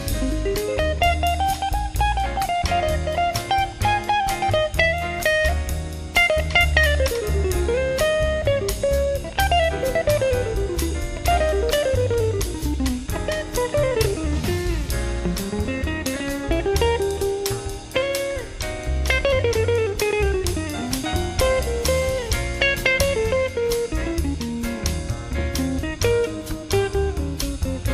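Small jazz combo playing live: a solo line of quick runs rising and falling over walking low bass notes and drums, with no horns playing.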